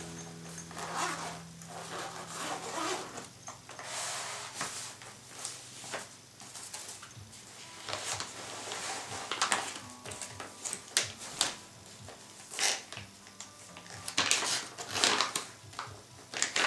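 Zip of a fabric carry case being opened, then irregular rustling and scraping as the case is handled and a plastic bag with the scan tool inside is lifted out.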